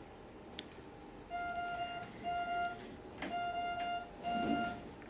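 Electronic beeping: a steady mid-pitched tone sounds four times, about once a second, starting just over a second in. A sharp click comes just before the beeps.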